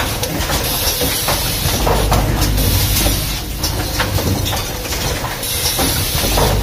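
Fully automated rapid test kit assembly machine running, with irregular clicks and knocks over a steady mechanical rumble and noise.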